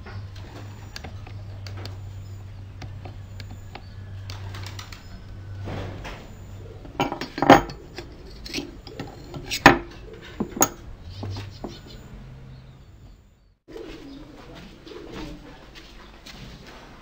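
Sharp metallic clicks and clinks from a screwdriver and a steel hose clamp being handled on a wooden drill stand; the two loudest clicks come a couple of seconds apart past the middle. Under them runs a low steady hum, and birds call in the background.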